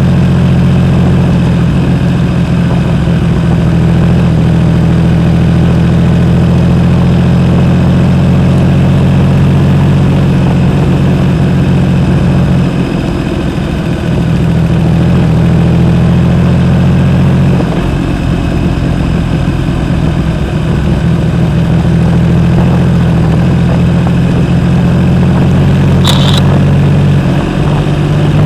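A 2012 Triumph Rocket 3 Roadster's 2.3-litre three-cylinder engine running loud and steady through a Jardine aftermarket exhaust. The note eases off briefly a few times and then settles back.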